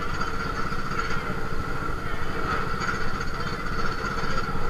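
A machine running steadily nearby: a constant low rumble with a steady high whine over it.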